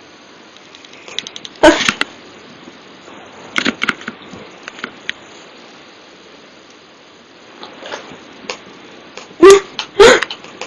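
A woman hiccupping: a loud, sharp hiccup about two seconds in, a softer cluster around three and a half seconds, and a close pair of loud hiccups near the end, with faint clicks in between.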